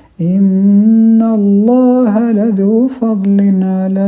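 A male reciter chanting the Quran, with no accompaniment: after a quick breath he holds one long drawn-out syllable, ornamenting it with wavering turns of pitch in the middle and breaking briefly about three seconds in.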